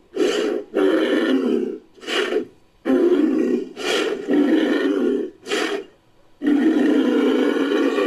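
Made-up Bramatherium calls pieced together from camel, moose and bull sounds: a run of about eight rough, low animal calls in quick succession, most of them short, with one longer call near the end.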